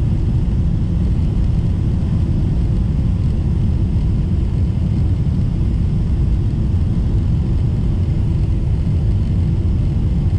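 Cabin noise inside a Boeing 777-300ER airliner on its descent to land: a steady low rumble of airflow and its GE90-115B turbofan engines.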